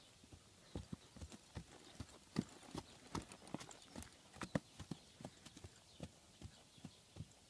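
Hoofbeats of a ridden horse with its shoes just taken off, bare hooves striking hard, uneven grassy ground in a steady run of dull thuds. They are loudest around the middle, as the horse passes close by.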